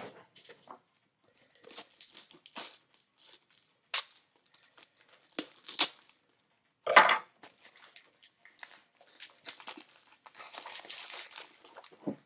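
Plastic packaging rustling and crinkling as it is handled, with a few sharp clicks and a louder knock about seven seconds in.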